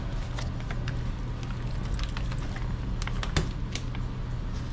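Plastic water bottles being handled and uncapped over a metal mud pan of drywall compound powder: scattered light clicks and taps over a steady low hum.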